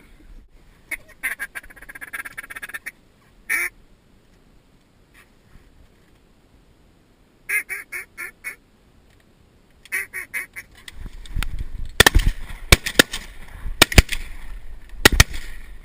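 Runs of duck quacks, several short evenly spaced quacks at a time, with pauses between the runs. Over the last few seconds there is louder rustling noise, broken by several sharp, loud cracks.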